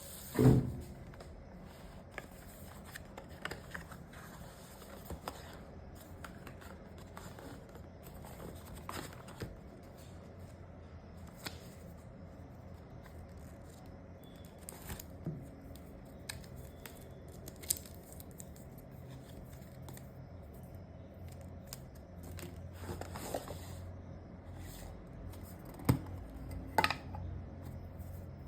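Packaging of a Casio G-Shock watch being handled and opened: scattered clicks, rustles and cutting sounds, with a loud knock just after the start and two sharp clicks near the end.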